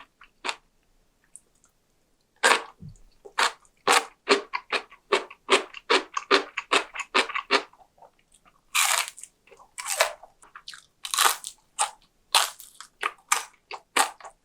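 A person chewing crunchy food close to the microphone: rapid crisp crunches at about two to three a second, after a brief pause near the start, with a few louder, longer crunches in the second half.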